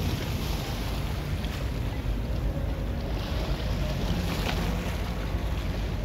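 Wind buffeting the microphone over choppy harbour water, with a boat engine running underneath as a steady low rumble.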